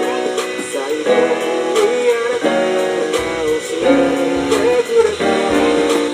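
Electronic keyboard playing a pop melody over sustained chords, with a low bass line coming in about three seconds in.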